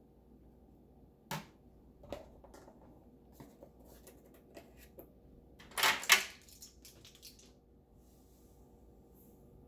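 Off-camera kitchen handling sounds: a handful of light clicks and knocks spread out, with one brief, louder burst of noise about six seconds in.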